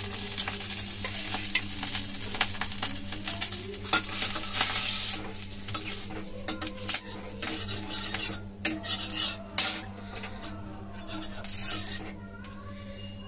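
Metal spatula scraping and clinking against a wok as pieces of fried egg are lifted out, with hot oil sizzling underneath. The strokes come irregularly and thin out near the end.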